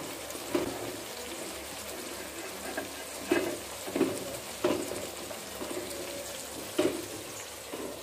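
A spatula stirring thick, simmering kadhi in an aluminium pot: a steady wet, sloshing background with several short scrapes and knocks of the spatula against the pot.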